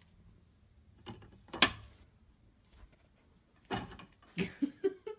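Wooden plantation shutter louvers clattering and rattling as dogs push against them. There are a few sharp strikes about a second in, the loudest of them here, then a second cluster of rattles toward the end.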